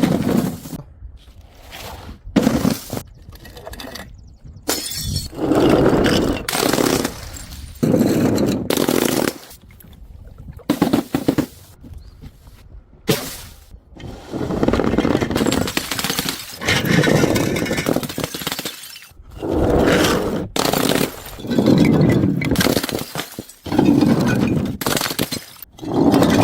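Objects being smashed and crushed: a string of separate breaking, crunching crashes, one every one to two seconds.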